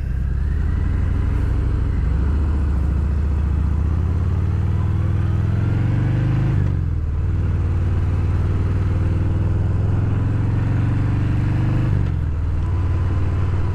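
Harley-Davidson Fat Bob 114's Milwaukee-Eight V-twin under way through Rinehart 4.5-inch slip-on mufflers with no tune, a deep rumble. Revs climb steadily and drop twice, about halfway through and near the end, as it shifts up.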